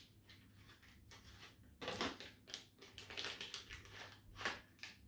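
A small packet of parts being handled and opened, rustling and crinkling in short irregular bursts from about two seconds in.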